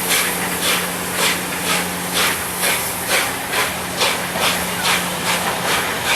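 Steam locomotive 60163 Tornado, a three-cylinder Peppercorn A1 Pacific, pulling away slowly. Its exhaust chuffs in regular beats about two a second over a constant hiss of steam, with a steady low hum underneath.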